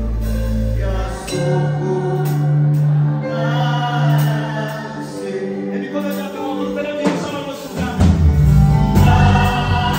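Live gospel worship song: a male lead singer with a choir and instrumental backing. The low bass drops away about a second in and comes back fuller near the end.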